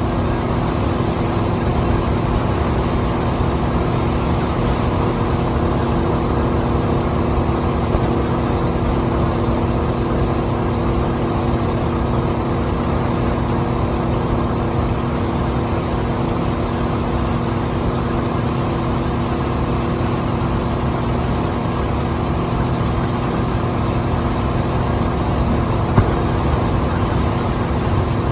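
Speedboat engine running steadily at cruising speed, a constant hum over a rushing noise of the hull moving through water. One brief knock near the end.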